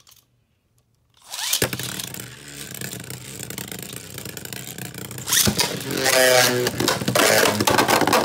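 A Beyblade Burst top is ripped from its launcher into a plastic stadium about a second in, lands with a click and spins on the stadium floor with a steady whir. In the last few seconds a second launcher gives a loud, pitched whirr as the next top is ripped in.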